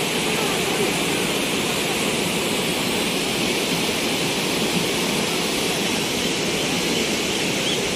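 Fast mountain river rushing over boulders and rapids, a loud, steady wash of white water.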